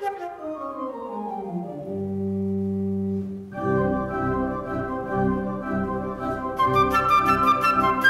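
Organ playing alone: a falling run settles into a held low chord, then a lively chordal passage begins about three and a half seconds in. The flute comes back in with short, detached notes near the end.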